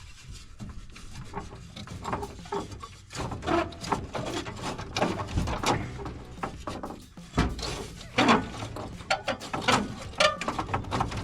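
Hand tools clicking and knocking against metal in irregular taps while a wrench works the last bolt loose, with a few brief squeaks.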